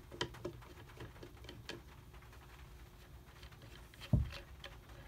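Faint clicks and scrapes of a flathead screwdriver turning out the buttstock screw of a Henry .22 lever-action rifle. A single dull thump comes about four seconds in.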